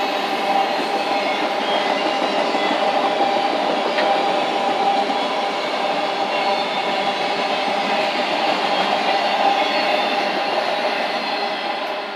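Train rolling past on the track: a steady, loud noise of wheels on rail with faint steady whining tones above it, easing slightly near the end.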